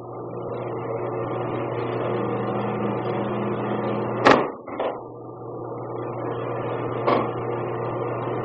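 Steady electrical hum with a faint hiss, broken by sharp slaps about four seconds in, a smaller one just after, and another about seven seconds in: aikido breakfalls as thrown partners hit the mat.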